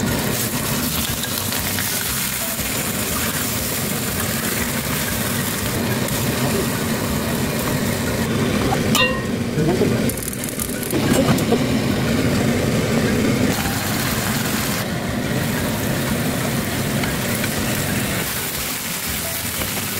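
Mackerel fillets frying in oil in a pan, a steady sizzle, with a few brief knocks about halfway through.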